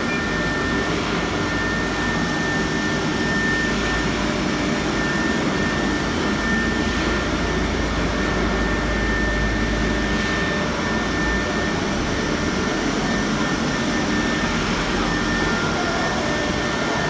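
CNC router with automatic tool changer running: steady machine noise with a steady high whine throughout.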